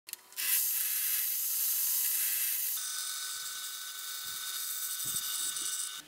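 Small benchtop table saw running and cutting wood: a loud, high-pitched hissing cut that settles into a steadier whine about three seconds in.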